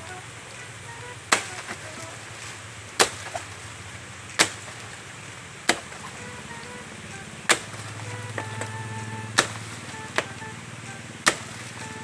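Machete chopping into a banana plant's trunk: eight sharp, separate strikes, about one every one and a half seconds, over background music.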